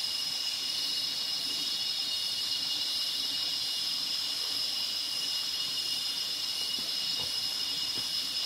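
Rainforest insect chorus: one steady, high-pitched drone that holds unchanged throughout.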